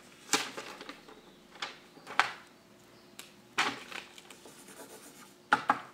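Paper and a manila envelope being handled on a wooden tabletop: a handful of short rustles and knocks with quiet gaps between them.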